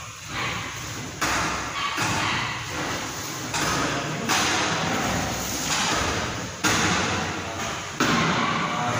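Aluminium kitchen-cabinet drawers being worked at a sink cabinet: a series of sudden thuds, about six, each followed by a second or so of sliding, rattling noise that fades.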